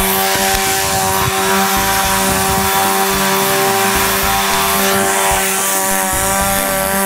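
Chainsaw engine running at a steady speed with an unchanging pitch.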